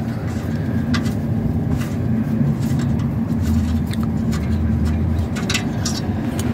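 A steady low mechanical hum, with a few light metallic clicks as the exhaust temperature sensor is unscrewed by hand from the diesel particulate filter housing.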